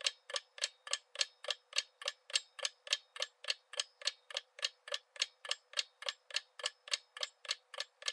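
Ticking-clock sound effect for a quiz countdown timer, with steady, evenly spaced ticks at about four a second while the time to answer runs out.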